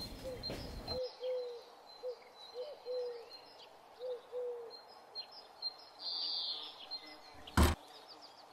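Birds calling: scattered high chirps and a series of short, repeated lower calls. A single sharp knock near the end is louder than the birds.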